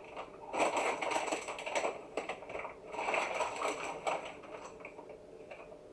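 A plastic bag crinkling as it is handled, in two spells of crackly rustling. The first starts about half a second in and the second about three seconds in, with a few faint clicks after.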